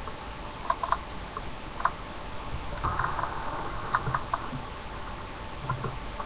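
Small pet rat moving about, making scattered light clicks and scratches in small clusters over a faint steady hum.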